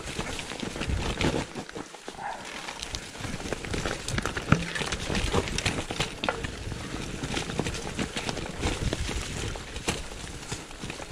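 Mountain bike rolling downhill on a leaf-covered dirt singletrack: tyres crackling over dry leaves and twigs, with the bike rattling and knocking irregularly over bumps.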